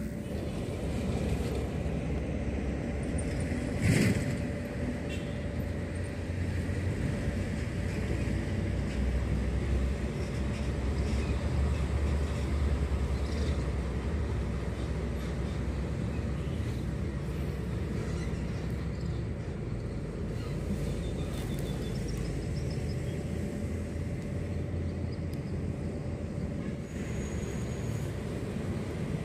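Steady low outdoor rumble, with one short sharp knock about four seconds in.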